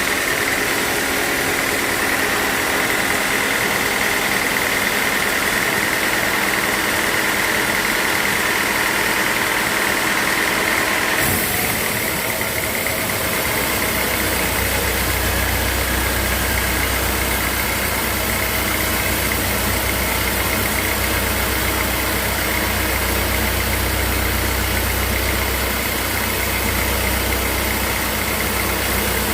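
Sawmill machinery running steadily. About eleven seconds in the sound changes abruptly, and a deep low rumble comes in soon after.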